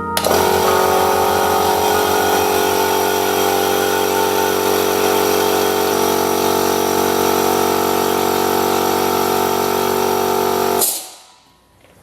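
Electric air compressor starting up and running steadily with a loud pitched motor hum, then cutting off suddenly about eleven seconds in.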